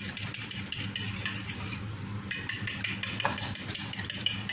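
A utensil whisking an egg-and-milk batter in a ceramic bowl, clinking rapidly against the bowl about five times a second, with a brief pause about two seconds in.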